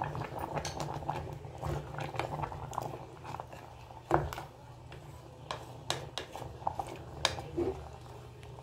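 A spatula stirring thick bitter gourd gravy in an open pressure cooker: wet squelching with scattered knocks of the spatula against the pot, a stronger knock about four seconds in, over a low steady hum.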